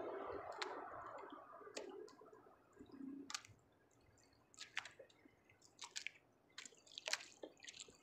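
Faint water sounds beside a small boat: a soft splashing trickle for the first two or three seconds, then scattered drips and small clicks.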